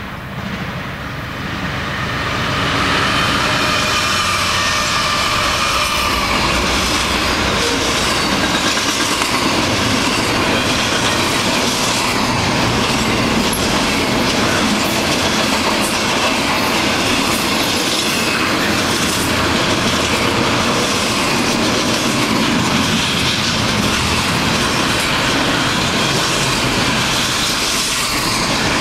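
CN double-stack intermodal freight train passing close by. The locomotives approach and go past as the sound builds over the first few seconds, then loaded container well cars roll by with a steady, loud wheel clatter on the rails and some wheel squeal.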